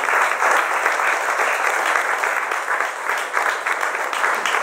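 Theatre applause at a curtain call: many hands clapping in a dense, continuous patter.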